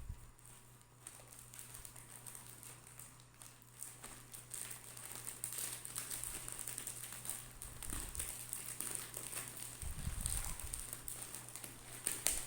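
Parcel packaging being handled and opened: rustling with a run of small clicks and taps, and a couple of low bumps in the second half.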